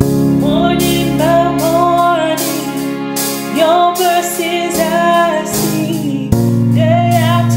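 A woman singing a slow gospel worship song, the line "Morning by morning, your mercies I see", over a backing track of held chords that change every couple of seconds.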